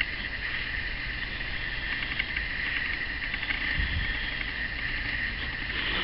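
Graphite pencil scratching across sketchbook paper as lines are drawn freehand, over a steady high hiss.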